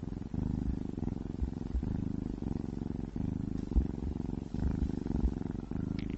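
Domestic cat purring: a steady low rumble that pauses briefly about every second and a half as the cat breathes in and out, with a few soft low bumps.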